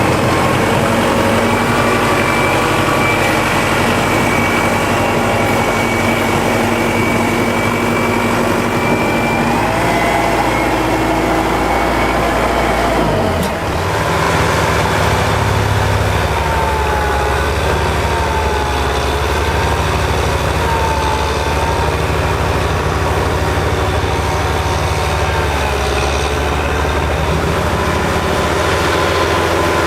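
Kubota L5740 tractor's diesel engine running steadily; its low engine tone changes about halfway through.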